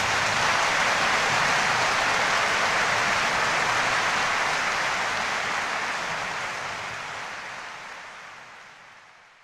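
Audience applauding, a dense sound of many hands clapping at once that fades out over the last few seconds.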